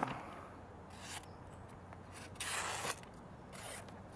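Thin CPM 10V hunter knife slicing through phonebook paper, testing the freshly sharpened edge: a few short scratchy swishes with paper rustling between them. The longest slice comes about two and a half seconds in.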